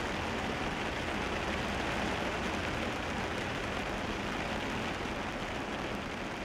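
Steady hiss of a car driving in the rain, heard from inside the cabin: tyres on the wet road and rain on the car.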